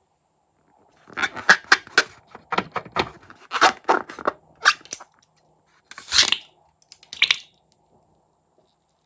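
Hands working slime and balloons: a run of short crackly, squelching bursts, with a longer rubbing squeak about six seconds in.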